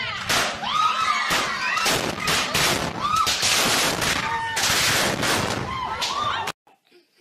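A firework going off, a rapid string of loud bangs and crackling, with people shrieking over it. It cuts off suddenly near the end.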